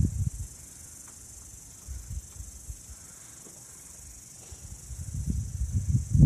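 Steady high-pitched insect chorus running throughout. Over it, wind buffets the microphone in uneven low gusts, loud right at the start and building again from about five seconds in.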